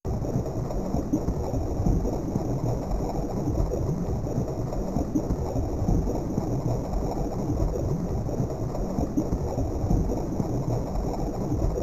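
Amiga demo soundtrack playing a low, steady rumbling noise texture with no melody. It starts abruptly out of silence.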